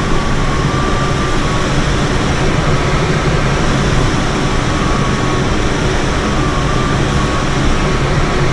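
Steady rush of air over a Schleicher K13 glider's canopy, heard inside the cockpit in flight. A faint thin tone sounds over the first two seconds.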